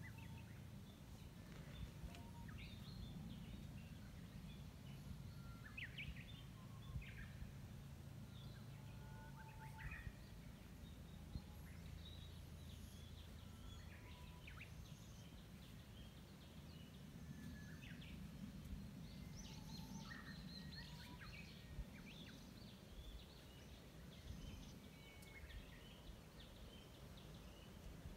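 Faint wild birds chirping and calling here and there in the trees, short scattered notes, over a steady low outdoor rumble.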